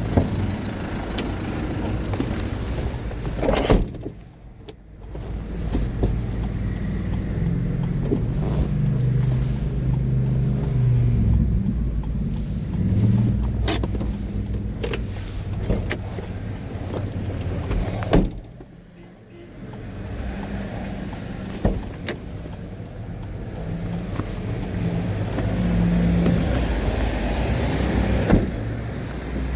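A motor vehicle's engine running, its pitch shifting up and down, with a few sharp knocks. The sound drops away briefly twice.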